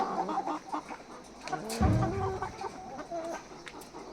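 A flock of broiler chickens in a poultry house clucking and cheeping continuously, many birds calling over one another. A brief low thump about two seconds in is the loudest sound.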